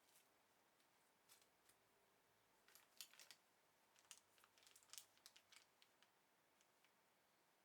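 Faint scattered clicks and rustles of plastic packaging and small accessories being handled during unboxing, clustered in the middle, over a steady low hiss.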